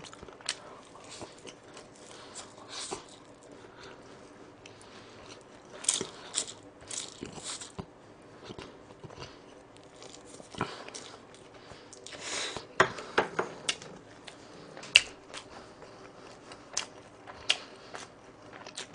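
Close-up mouth sounds of a person eating bibim-myeon noodles: chewing and short slurps, with scattered wet clicks and smacks coming and going, the busiest stretches about six seconds in and again about twelve seconds in.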